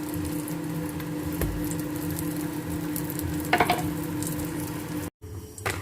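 Food sizzling in a hot pan, a steady crackle over a constant low hum, with one brief short sound about three and a half seconds in. The sound cuts off suddenly near the end.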